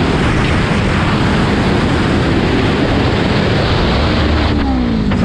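Motorcycle ridden at speed, heavy wind rushing over the rider-mounted microphone with the engine running underneath. Near the end the engine's pitch falls briefly, as when the throttle is eased off.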